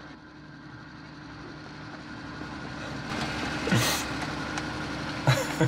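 Small Japanese kei mini truck's engine idling steadily, heard from inside the cab. A short burst of noise breaks in a little over halfway through.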